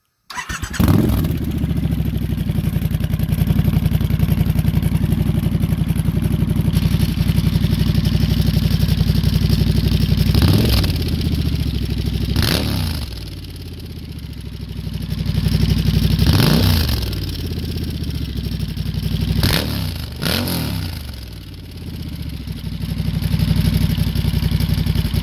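Triumph Scrambler 1200's parallel-twin engine starting about half a second in and idling steadily. It is then blipped five times with the throttle, each rev rising and falling quickly back to idle.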